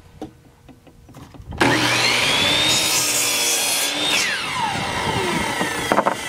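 Electric miter saw starting about a second and a half in, its motor whine climbing as the blade comes up to speed, then cutting through a wooden board. After the cut the trigger is let go and the whine falls as the blade winds down, with a few wooden knocks as the cut piece is handled near the end.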